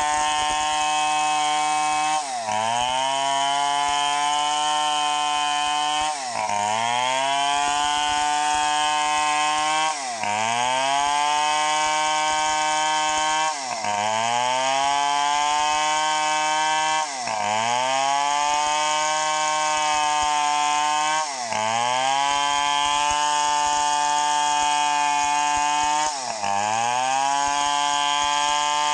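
Stihl 070 two-stroke chainsaw ripping lengthwise through a teak log at high revs. The engine pitch drops sharply and climbs back every few seconds, about seven times.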